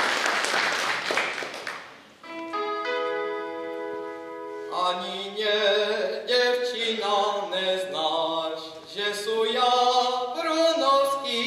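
Applause dies away, then the band's instruments hold a short chord that gives the starting note. About five seconds in, a boy begins singing a Moravian folk song alone, unaccompanied.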